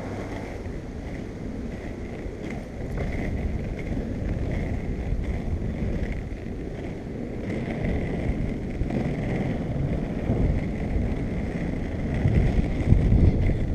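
Skateboard wheels rolling over rough asphalt and concrete pavement, a steady low rumble mixed with wind buffeting the microphone; the rumble grows louder near the end.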